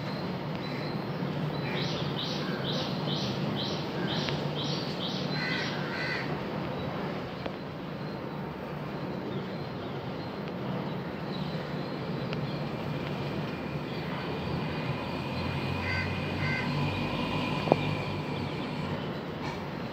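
A crow cawing: a quick run of about eight caws, then a few shorter calls later on, over a steady low background hum. A single sharp click sounds near the end.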